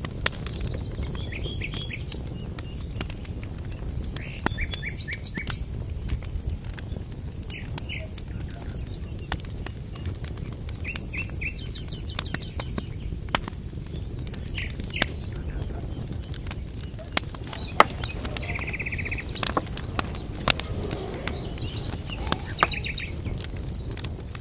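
Small birds chirping in short scattered bursts over a steady high-pitched whine, with occasional sharp clicks and a low rumble of background noise underneath.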